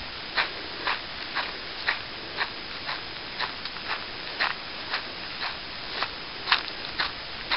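Footsteps walking at a steady pace on a dry dirt trail strewn with dry grass and leaves, crunching about twice a second.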